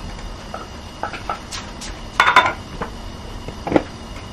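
Metal cookware clinking and knocking in a few separate strikes. The loudest cluster comes a little past two seconds in, with a single knock near the end.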